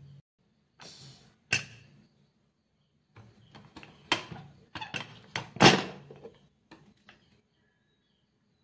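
Aluminium pressure cooker being handled and opened: a string of sharp metal clanks and knocks, the loudest a little past halfway.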